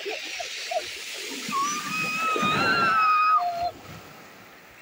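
Sea waves washing up over a shingle beach, with a child's long high shout held for about two seconds in the middle that drops in pitch as it ends. The wash fades soon after.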